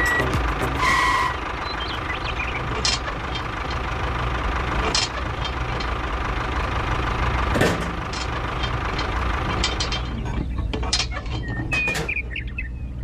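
Small motor of a miniature model construction machine running steadily, with a few sharp clicks and knocks, thinning out near the end.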